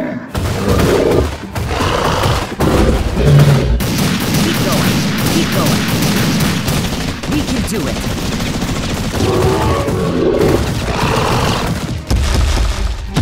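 Rapid bursts of gunfire with booms, dubbed-in battle sound effects, going on without a break throughout.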